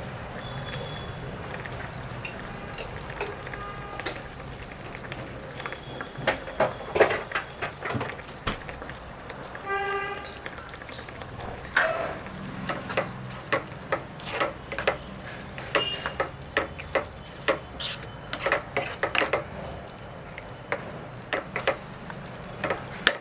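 A thick okra and prawn curry simmers in a nonstick pan, with a steel ladle stirring and scraping through it. It starts as a steady low sound, and from about six seconds in there are repeated clicks and scrapes of the ladle against the pan, plus one brief ringing tone near the middle.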